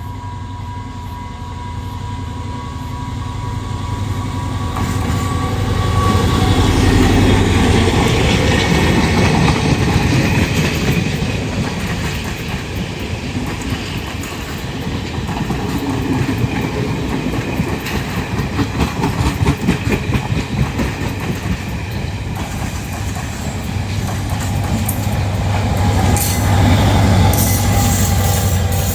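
A train passing slowly: a locomotive engine's steady drone, then the wheels clattering over the rail joints as the carriages go by, with the engine drone loud again near the end.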